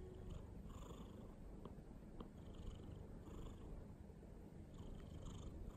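Ginger tabby cat purring: a faint, steady low rumble, with a few soft clicks.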